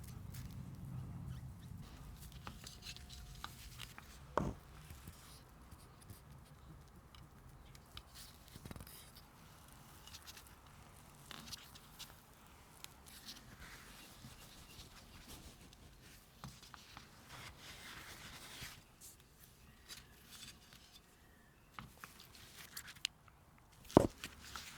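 Faint handling of small camera parts during cleaning and reassembly: light rubbing and scratching with scattered small clicks, and two sharper clicks, about four seconds in and near the end.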